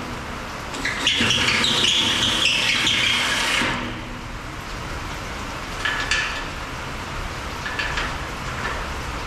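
A cordless drill runs for about three seconds, boring out a hole in a steel mounting channel so that a carriage bolt's square neck will seat. A few short clicks and taps follow.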